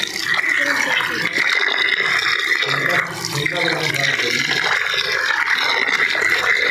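Tap water pouring into a steel basin full of aloe vera leaves, splashing steadily as a hand swishes and rubs the leaves clean.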